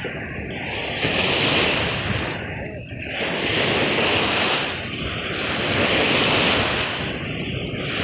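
Small lake waves breaking and washing in against the shore, the sound swelling and easing in surges every two seconds or so, with wind rumbling on the microphone.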